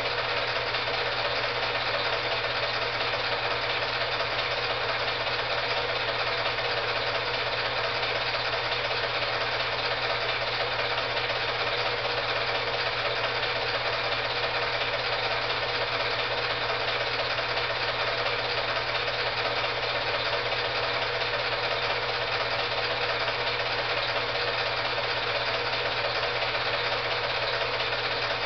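Film projector running steadily: an even mechanical whir with a low hum that does not change with the picture.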